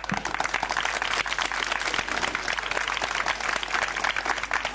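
Large outdoor audience applauding: many hands clapping together, starting abruptly and going on steadily.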